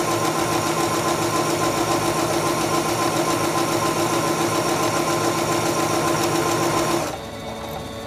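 Singer Stylist 7258 computerized sewing machine stitching a buttonhole at steady speed with a fast, even needle rhythm. It stops about seven seconds in, as the buttonhole is finished.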